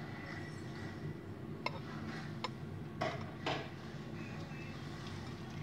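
Metal spoon stirring cooked instant noodles in a glass bowl, clinking against the glass several times between about one and a half and three and a half seconds in, over a steady low hum.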